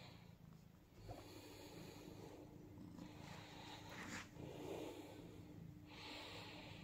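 Domestic cat purring faintly as it is stroked, a low steady rumble, with brief soft rustles of a hand rubbing its fur.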